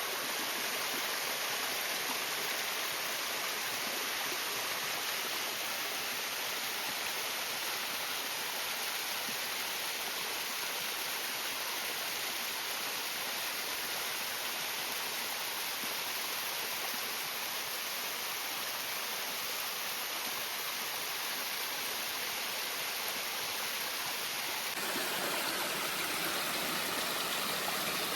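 Sekine Ōtaki waterfall: a steady rush of falling water. Near the end the sound changes abruptly to a brighter rushing noise.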